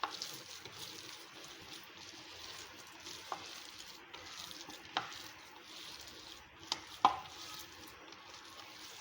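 Raw chicken mince being mixed with spices and soaked bread in a bowl: a steady wet mixing noise, broken by a few sharp clicks, the loudest about seven seconds in.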